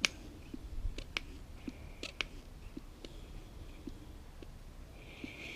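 Faint, scattered clicks and light taps over a low background hum, with a short soft hiss near the end.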